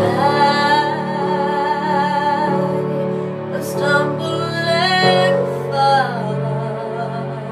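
A young woman singing a slow, sad ballad over a steady instrumental accompaniment, holding long notes with a slight waver.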